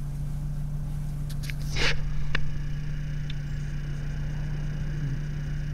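Steady low drone of a Ford car's engine and road noise heard from inside the cabin while driving, with a brief rustle about two seconds in and a single click soon after.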